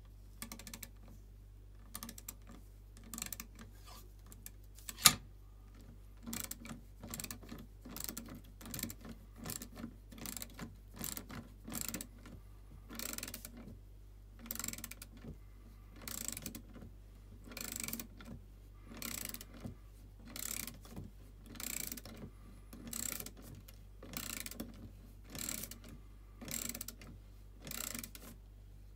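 LUX-TOOLS hand ratchet wrench clicking as it turns the pivot nut of a pair of garden shears: short runs of rapid pawl clicks on each back-swing, repeating about once a second. A single sharp click about five seconds in is the loudest sound.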